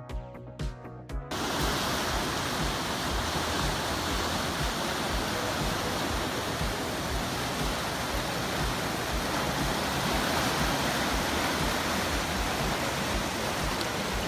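Background music with a steady beat, joined about a second and a half in by the steady, full rush of river whitewater rapids pouring over and around boulders, which then dominates.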